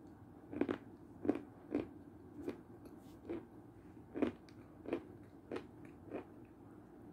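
Close-miked mouth sounds of a person eating milk soup: about nine short clicks at a fairly even pace, roughly one every two-thirds of a second.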